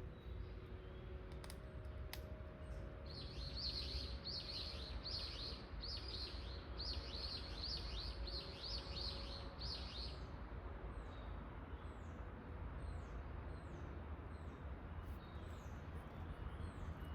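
Small bird calling: a quick series of repeated high chirps for about seven seconds, then fainter short falling notes about once a second, over a steady low rumble.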